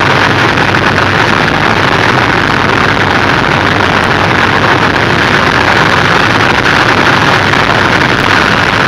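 BMW E32 7 Series car running at a steady, loud level, its engine and road noise heard as a dense, even rush with no rise in pitch.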